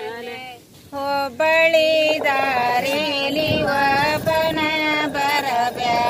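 Several women singing a Kannada grinding-stone work song (beesokallina pada) together in unison, with a short break between lines about a second in.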